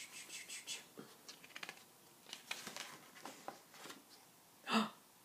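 Paper pages of a picture book being turned, with faint rustling, scratching and small clicks. Near the end comes one short vocal sound.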